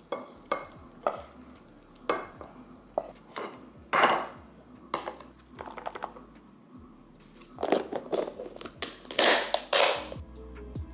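Kitchen handling: a wooden spatula scraping and knocking pasta out of a pan into a ceramic bowl, then food being packed into a plastic container and its clip-on lid pressed down and snapped shut, a dense run of loud clacks near the end.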